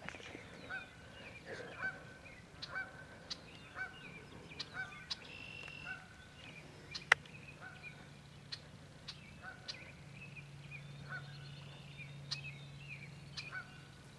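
Bird giving a steady series of short calls, about two a second, with one sharp click about halfway through.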